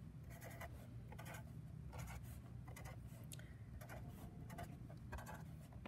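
Black felt-tip permanent marker on paper: short, faint scratches and dabs, about two a second, as it draws strokes and dots.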